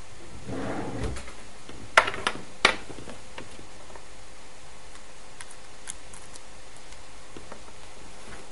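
Three sharp clicks and knocks close together about two seconds in, then a few faint ticks, over a steady hiss: an iPod and its USB cable being handled and plugged in to connect it to the computer.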